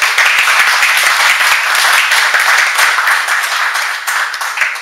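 Audience applauding: dense clapping from many hands, fading away near the end.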